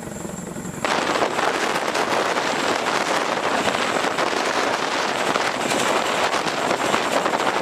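CH-47 Chinook tandem-rotor helicopter hovering close by: a loud, dense rotor and engine noise with a rapid crackle, starting sharply about a second in.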